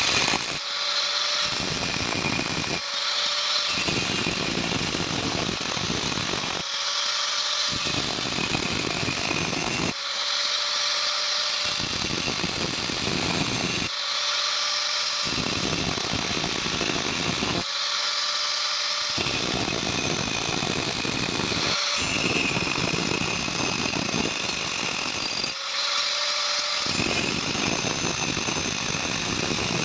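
Angle grinder with an abrasive disc cutting grooves into a metal rod. It runs steadily throughout, and its sound changes every few seconds.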